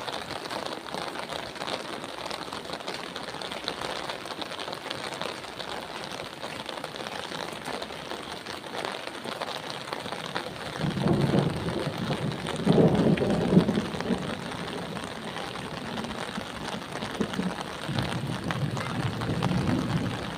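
Steady rain falling, an even hiss throughout, with several louder low rumbles in the second half.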